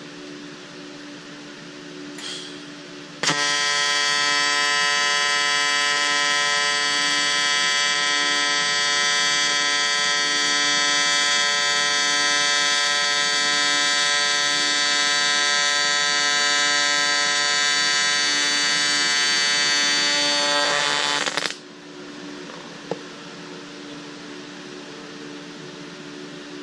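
AC TIG welding arc on aluminum square tubing, a loud steady buzz that starts about three seconds in and runs for roughly eighteen seconds before cutting off. The thin-walled tubing is heating up quickly at this amperage.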